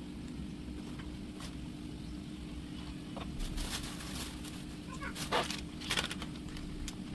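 A steady low hum with a few light clicks and knocks, the loudest a couple of sharper knocks about five and six seconds in.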